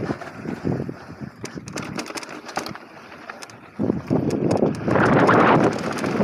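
Mountain bike riding down a dirt bike-park trail: tyres rumbling over loose dirt and gravel, with the frame and chain rattling in short clicks. The rush eases off for a few seconds and swells again about four seconds in.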